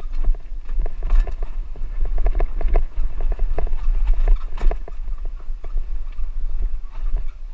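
Bicycle rattling and knocking as it rolls over a rough dirt track, a quick irregular run of sharp knocks, with wind buffeting the microphone as a constant low rumble.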